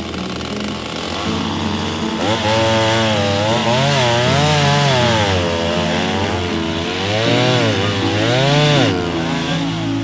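Stihl two-stroke chainsaw cutting into an ancient tree trunk dug from landslide sediment. From about two seconds in, its engine speed rises and falls again and again as the chain bites into the wood, then falls away about nine seconds in.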